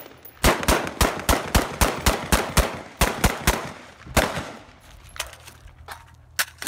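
An AR-15 rifle, an M4A1 Block 1 SOPMOD clone in 5.56 mm, firing a fast string of sharp shots, about four a second with one brief pause. The shots stop about four seconds in, and a few fainter scattered shots follow.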